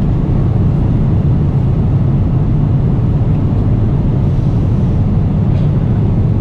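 Jet airliner cabin noise in flight: a steady, even low rumble.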